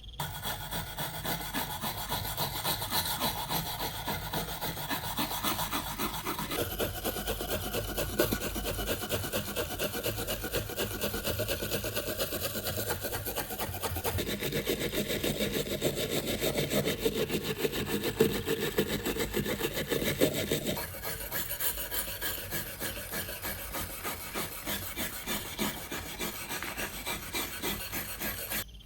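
Rapid, continuous scraping strokes of hand abrasive work on rusty metal, such as a file or sandpaper working the surface. The sound changes character twice: a bit over a fifth of the way in, and again about two-thirds through.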